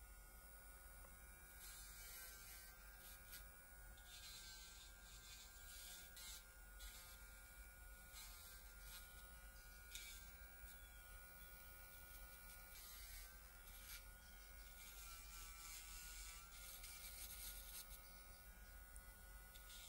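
Electric nail drill with a fine pointed bit running with a thin, steady whine whose pitch wavers now and then. Short gritty bursts come and go as the bit grinds the polygel along the cuticle line.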